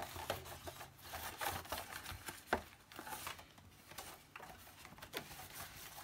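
The inside of a Hoover PurePower Enigma vacuum cleaner's bag door being wiped over by hand: quiet, irregular rubbing and scrubbing, with a sharp knock about two and a half seconds in and another near the end.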